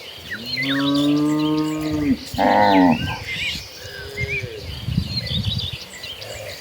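Cattle mooing: a long low moo about half a second in, a shorter, higher call right after it, and a fainter moo near the middle. Birds chirp in the background.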